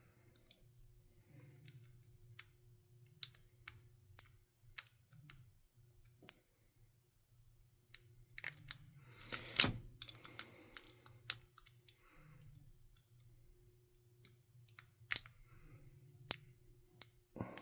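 Small metal clicks and rattles of lock picks and Master Lock padlocks being worked and handled, scattered and irregular. A busier, louder clatter comes about nine to ten seconds in.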